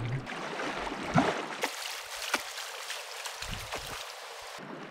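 River water lapping and gurgling close to the microphone, with splashing from a person wading into the pool and swimming off.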